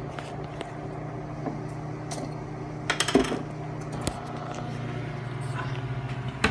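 Samsung Sensor Cook microwave running with a steady low hum, over which a few sharp clinks and clatters of kitchen items being handled sound about three seconds in, with a single knock about a second later.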